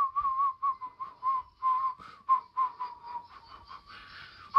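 Someone whistling a tune of short, warbling notes at about three a second, sinking slightly in pitch, on a cartoon soundtrack.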